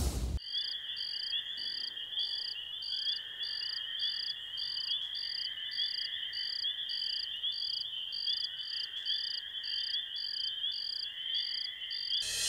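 Night ambience of crickets: a steady high insect trill with a regular chirp repeating nearly twice a second. A whoosh fades out just after the start, and another louder whoosh cuts in at the very end.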